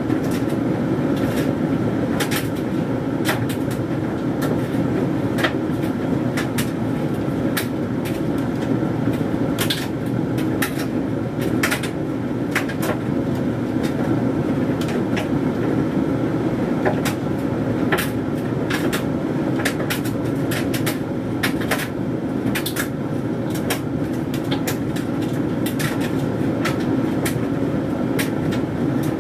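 Hoover Dynamic Mega 10kg condenser tumble dryer running: a steady rumble of the turning drum and fan, with frequent irregular clicks and taps from the load of synthetic clothes tumbling against the drum.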